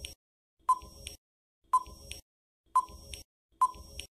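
Quiz countdown-timer sound effect: a short tick with a brief ping, about once a second, each followed by a fainter tock. It is heard four times.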